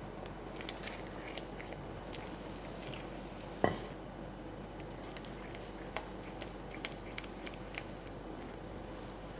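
Silicone spatula stirring cream into a tomato sauce in a stone-coated wok: light clicks and taps against the pan. A single sharp clank with a short ring, a little under halfway through, is the loudest sound.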